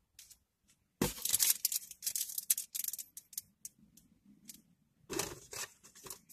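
Plastic packaging being crinkled and torn open by hand: a dense burst of rustling and tearing about a second in, scattered crackles after it, and another burst near the end.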